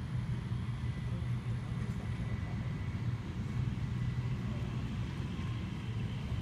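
A steady low rumble with a faint high steady whine above it.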